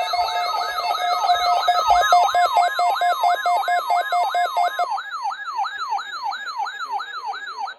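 Electronic siren alarm: a rapid chain of falling whoops, about three a second, with a steady pulsing beep under it that stops about five seconds in. The whoops carry on until the alarm cuts off suddenly near the end.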